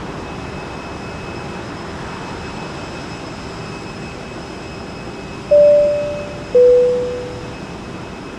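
Steady roar of jet aircraft engines with a faint high whine. Midway through, a loud two-note chime falls in pitch, each note ringing and fading out.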